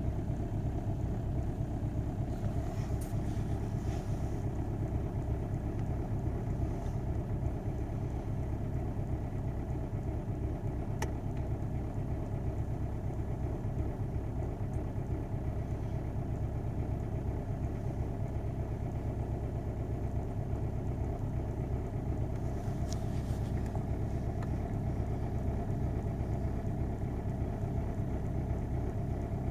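Car diesel engine idling steadily on a cold start at a raised idle of about 1,300 rpm, heard from inside the cabin.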